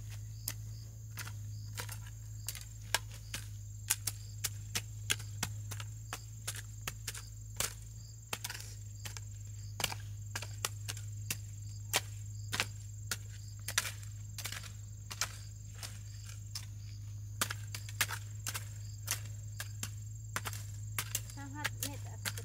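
A series of sharp knocks, irregular at about two or three a second, over a steady high-pitched tone and a low hum.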